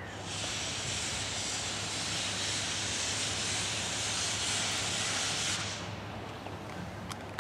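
Steam locomotive C58 363 letting off steam: a steady hiss that starts suddenly and stops abruptly after about five and a half seconds.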